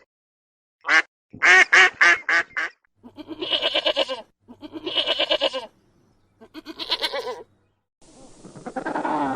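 A horse whinnying in a quick run of short pulses about a second in, then a goat bleating three times, each a wavering call of about a second.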